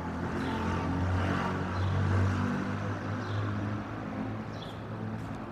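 A motor vehicle's engine passing close by on a city street, its low hum swelling to a peak about two seconds in and then easing off.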